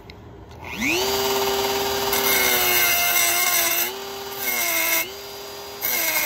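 Dremel rotary tool spinning up about a second in, then cutting into a steel propane cylinder. The high motor whine holds steady while the bit grinds against the metal in three harsh bouts.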